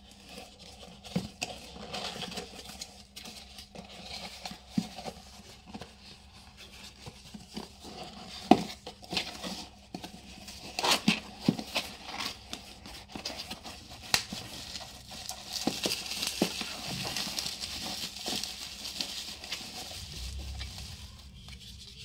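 Hands opening a cardboard shipping box: scattered scrapes, taps and rustles of cardboard flaps being pulled and folded back, with a longer stretch of crinkly rustling in the second half.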